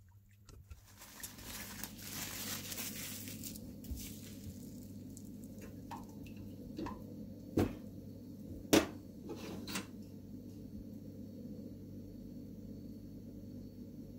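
Quiet handling noises: a stretch of rustling, then two sharp knocks a little over a second apart, over a faint steady hum.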